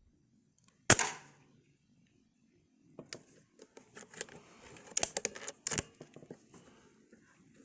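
A single air rifle shot, a sharp report about a second in with a short tail, followed by a run of mechanical clicks and rattles for about three seconds.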